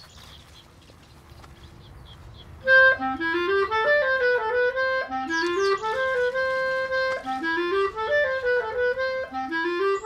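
After a quiet start, background music comes in nearly three seconds in: an instrumental melody of quick rising runs of notes, repeating about every two seconds.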